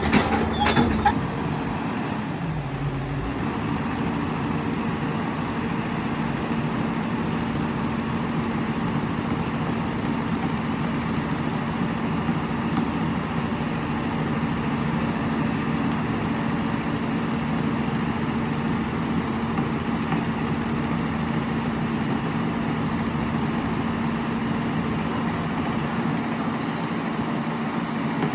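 Excavator's diesel engine running steadily at a constant pitch, with a few sharp clanks in the first second.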